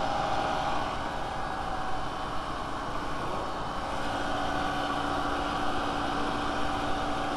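VW Golf Mk IV 2.0L four-cylinder engine idling steadily while it warms up, coolant at about 86 degrees with the thermostat not yet open.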